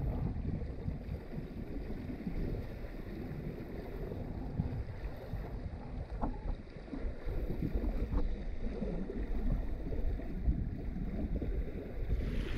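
Wind buffeting the microphone and water washing along the hull of a small sailboat under way, a steady low rumble.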